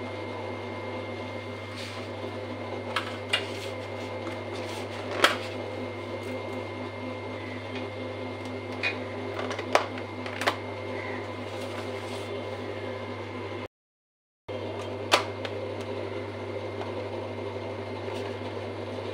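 A steady appliance hum with a few sharp clicks and taps of plastic food containers being handled and set down on a stone counter. The sound cuts out completely for under a second about two-thirds of the way through.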